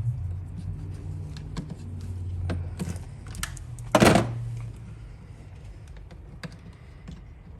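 Light scattered clicks and taps of hand tools and stiff electrical wire being handled while a conductor is worked into a Tesla Wall Connector, with one louder, harsher noise about four seconds in.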